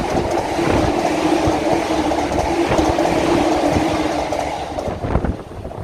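Electric train passing at speed: a steady, loud rush of wheel-on-rail noise with a held hum in it, dying away about five seconds in.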